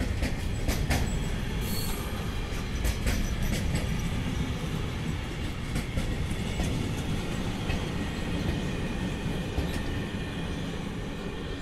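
Freight train wagons rolling past: a steady rumble of steel wheels on the rails with scattered sharp clicks and squeaks in the first few seconds, easing off a little near the end.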